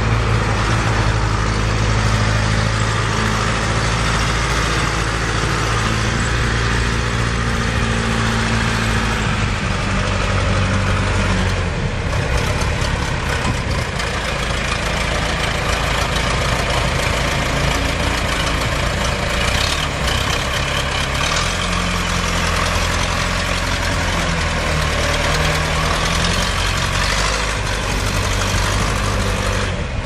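1983 John Deere 510B loader backhoe's four-cylinder diesel engine running steadily, its engine speed shifting about a third of the way in and again past the middle.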